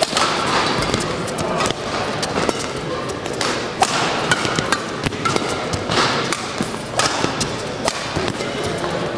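Badminton rally: sharp racket strikes on a shuttlecock about once a second, mixed with thuds of players' footwork and brief shoe squeaks on the court, over the hum of a large hall.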